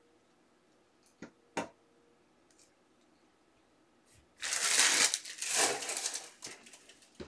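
Two light plastic clicks as rigid top-loader card holders are set down, then about two seconds of loud rustling and scraping of trading cards being handled.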